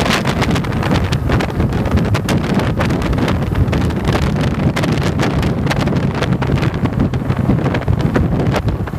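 Wind buffeting the microphone on a moving motorcycle, with the engine and road noise running steadily underneath.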